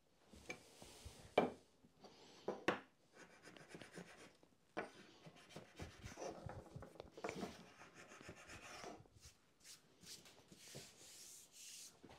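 Small hand scraper with a metal blade scraping excess wax knot filler off an oak board in short strokes, with a couple of sharp knocks early on and softer rubbing near the end.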